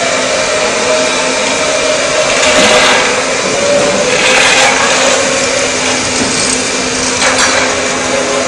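Steady, loud whir of air blowers feeding hoses into a Formula One car, with a steady hum underneath and a few brief louder surges of rushing air.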